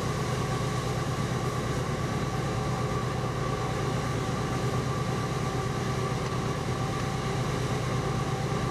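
Steady running noise heard inside the cab of a moving diesel-electric freight locomotive: the engine's low drone and the wheels on the rails, with a steady whine of several tones above it.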